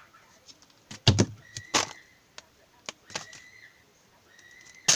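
Foil sticker packet being torn open and crinkled: several sharp crackles, with a faint thin high tone heard three times.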